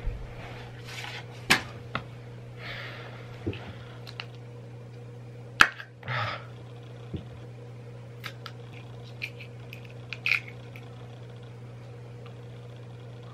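Scattered small clicks, knocks and rustles of a plastic bottle of bubble solution being handled and its cap worked open, over a steady low hum.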